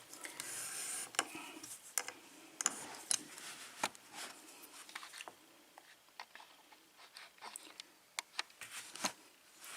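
Scattered small clicks and brief scraping of lock-picking tools being handled and fitted into the keyway of a Schlage pin-tumbler lock, busier in the first few seconds and sparser later.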